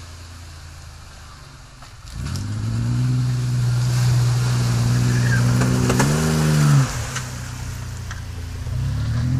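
Ford Explorer SUV engine running low for about two seconds, then revving up as the vehicle drives into a muddy puddle, with water splashing during the crossing. The engine revs up and back down once more about six seconds in as it climbs out, then runs lower before building again near the end.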